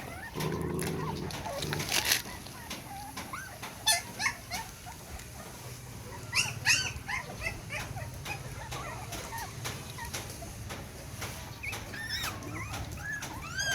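Puppies whimpering and squeaking: many short, high, rising-and-falling cries overlapping one another, mixed with a few sharp clicks. A steady hum sounds for about the first second.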